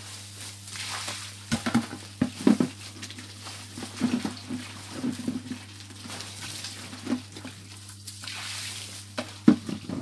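Grapes in a cloth flour sack being trodden underfoot on a slanted board, squelching and crushing in irregular short bursts as the must is pressed out.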